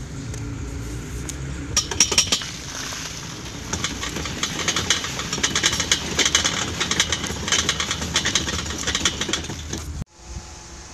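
Homemade coffee-grounds spreader cart being pushed over a tarp: a low rolling rumble, then from about two seconds in a fast clicking rattle from its front-wheel-driven sprocket and paddle wheel as it throws out the grounds. The sound cuts off suddenly near the end.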